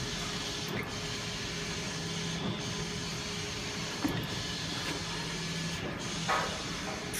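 Flatbed digital printer running, its print-head carriage shuttling back and forth across the bed with a steady mechanical hum that changes at each pass, roughly every second and a half to two seconds. A brief louder noise comes about six seconds in.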